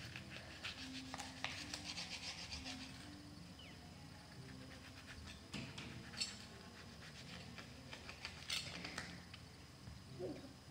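A sharp knife cutting lemons on a cutting board: faint scraping strokes and a few sharp taps of the blade.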